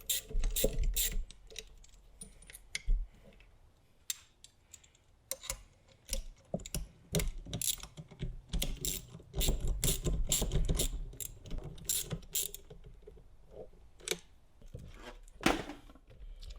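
Socket ratchet clicking in several runs of quick strokes with short pauses between, as 11 mm nuts on a compressor's isolator mounts are tightened down.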